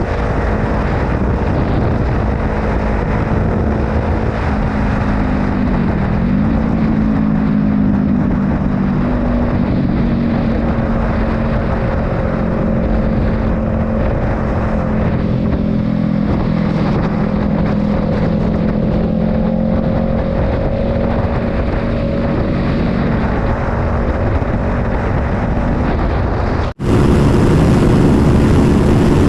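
Honda CBR500R's parallel-twin engine running at a steady cruise under heavy wind rush, its pitch dipping briefly and coming back up about six seconds in. Near the end the sound cuts off abruptly and resumes louder with a different engine tone.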